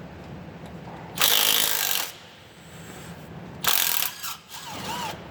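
Impact gun running in two bursts, the first about a second long and the second shorter about two and a half seconds later, as it backs out an A/C compressor mounting bolt on a 6.7 L Powerstroke diesel.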